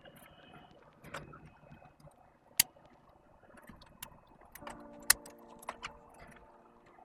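Sharp plastic clicks and light taps from handling and fitting mechanical-keyboard stabilizer parts, a few scattered clicks with the two loudest about two and a half seconds apart.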